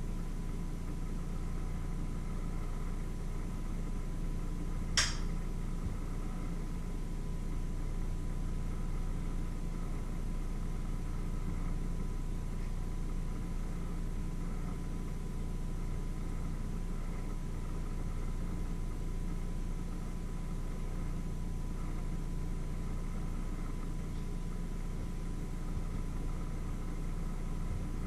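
Steady low machine hum with a thin constant high tone, and one sharp click about five seconds in.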